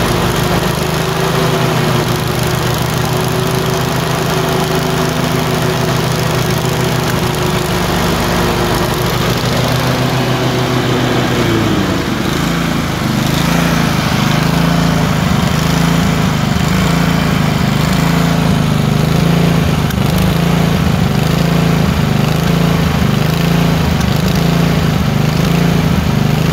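Tecumseh 22 HP twin-cylinder engine running steadily. About halfway through its speed drops, and then it surges, rising and falling about once a second. This is the surging that the title puts down to a random misfire alternating between the two cylinders.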